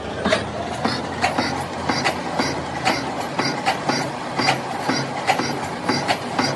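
Gear-cutting machine's toothed cutter cutting teeth into a cast metal gear blank, with a steady machine noise and a regular metallic clack about two or three times a second, one for each cutting stroke.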